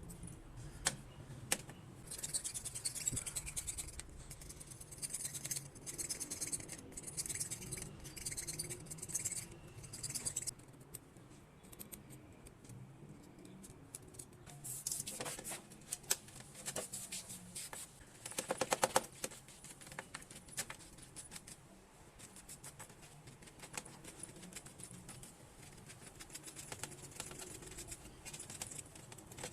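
Repeated scraping and rubbing strokes with scattered sharp clicks and taps, the sound of hand work on metal parts; a short dense rattle about two-thirds of the way through.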